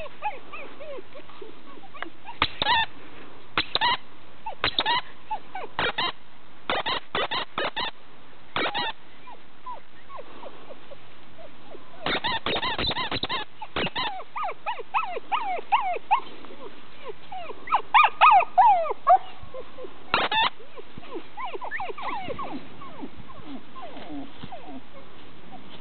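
Siberian huskies whining and yipping, short high cries that bend up and down in pitch, with a louder burst of yelps about two-thirds of the way through. Groups of sharp knocks or rattles come in between the cries in the first half and once more later.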